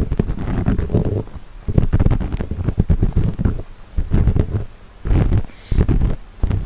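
Earpick scraping and grinding inside the ear of a 3Dio binaural microphone, close up: a series of rough strokes with a heavy low rumble, each lasting under a second, with short pauses between.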